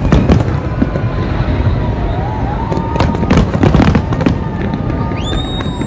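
New Year fireworks display: a dense run of loud bangs and crackles over a continuous rumble, with a gliding whistle in the middle and a high steady whistle coming in near the end.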